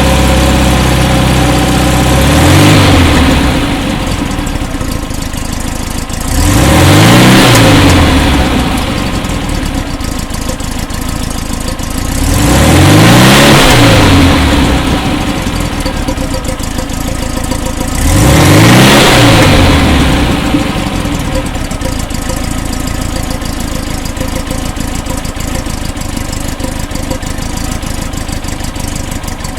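1968 Porsche 912's rebuilt air-cooled flat-four engine idling and revved four times, the first a short blip and the next three fuller, each rising and dropping straight back to idle, then settling into a steady idle.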